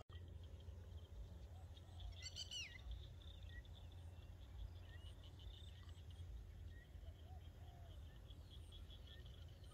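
Faint outdoor ambience of scattered bird calls, the clearest a single call sweeping downward about two seconds in, over a faint fast-pulsing chirr and a low steady rumble.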